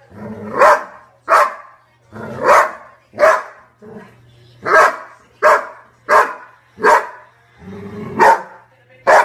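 Golden retriever play-barking at another golden retriever during rough play: about ten short, loud barks, one every second or less.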